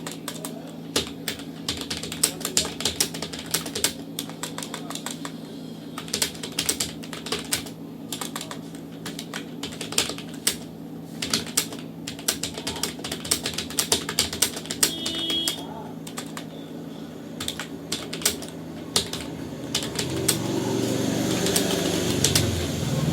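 Fast typing on a computer keyboard: rapid, irregular keystroke clicks, with short pauses between runs, over a steady low hum.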